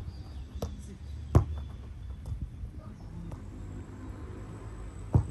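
Two sharp thuds of a football being struck, one about a second in and one near the end.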